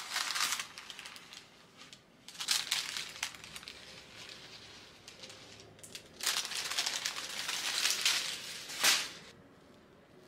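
Kitchen handling noises from baking preparation: several bursts of crinkling, crackling noise, the longest lasting about two seconds in the second half and ending in one sharp louder crackle.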